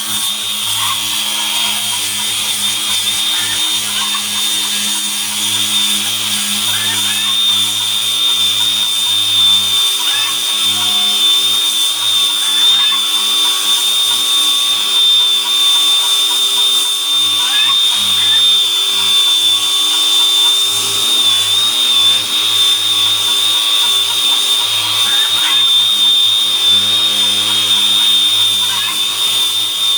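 Grinder fitted with sandpaper running continuously against dried cowhide, sanding the hide smooth. It makes a steady high whine that wavers slightly in pitch as the disc presses into the hide.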